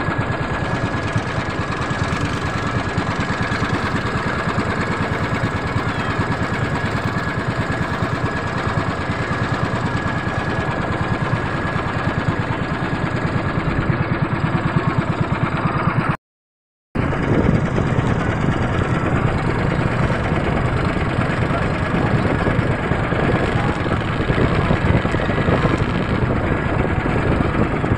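Outrigger motorboat's engine running steadily, heard from on board. The sound drops out completely for about half a second a little past the middle.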